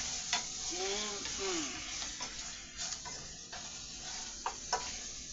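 Sauce sizzling in a pot while a utensil stirs the chicken, with several light clicks of the utensil against the pot. A brief hummed voice sound comes about a second in.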